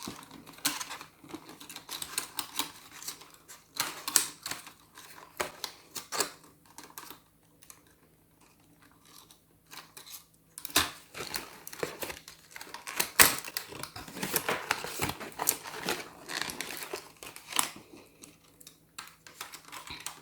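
Cardboard and plastic toy packaging being handled, crinkling and rustling, with scattered sharp clicks and taps as a toy pram is worked free of its ties. There is a quiet lull about seven to ten seconds in.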